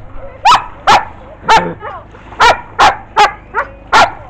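A dog barking repeatedly: about seven loud, sharp barks in quick succession, roughly two a second.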